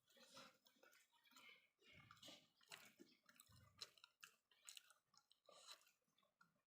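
Faint chewing with wet mouth clicks and smacks, irregular and several a second: someone eating boiled chayote root tuber.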